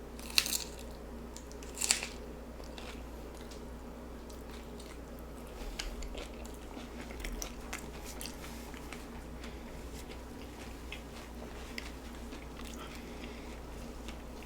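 A person biting into a crunchy fried tostada shell piled with toppings: two loud crunches in the first two seconds, then steady chewing with small crackles.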